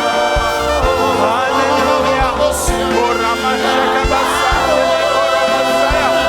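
Gospel worship music: a choir and band singing a sustained song with a steady drum beat.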